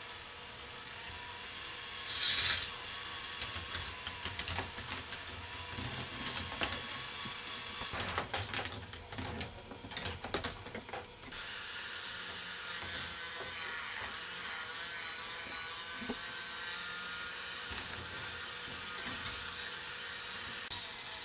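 K'nex ball machine running: plastic balls clattering and rattling along the tracks in a busy run of clicks through the first half, then only an occasional click, over the steady hum of a motorised lift.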